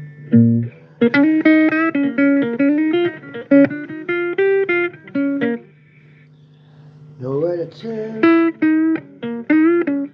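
Guitar playing a blues phrase of single plucked notes, with a steady low hum beneath. There is a short pause around the middle, then a note slid up into about seven seconds in.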